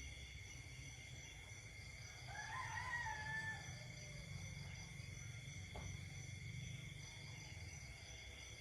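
Night chorus of insects, a steady high trilling with some pulsing. About two and a half seconds in, a rooster crows once, faint and short, rising then falling.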